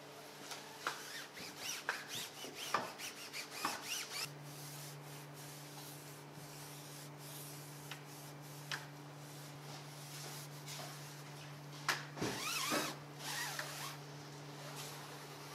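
Gloved hands and a cloth rubbing and wiping dressing onto a rubber car tyre sidewall: a run of short scratchy rubbing strokes, busiest in the first few seconds and again about twelve seconds in, over a steady low hum.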